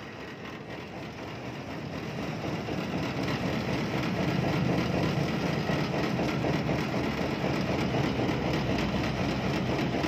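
A candlenut sieving machine with a deck of steel tube bars starting up on its inverter drive for a test run. Its running noise builds over the first four seconds or so as it comes up to speed, then holds steady.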